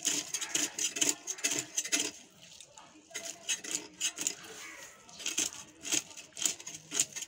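Snakehead fish being scaled on a boti (a fixed upright Bengali kitchen blade): quick, uneven scraping and clicking strokes as the scales are rasped off against the edge, in runs with short lulls.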